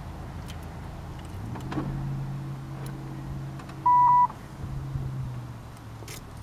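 Inside a Buick Century station wagon, an electric motor hums steadily for about four seconds, starting about a second and a half in. A short, loud beep sounds about four seconds in.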